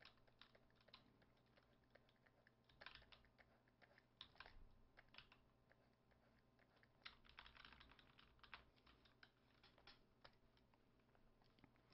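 Near silence with faint, scattered clicks and taps of a computer keyboard, coming in a few short clusters.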